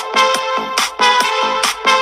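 Background electronic dance music with a steady beat.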